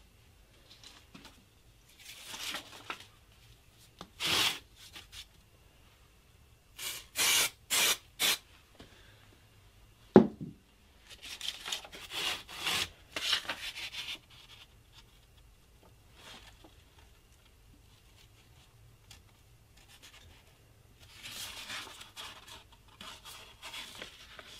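A paper pattern rustling and rubbing as it is laid on a glued wooden block and smoothed down by hand. Earlier come a few short hisses, four in quick succession about seven seconds in, and a single sharp knock about ten seconds in, the loudest sound.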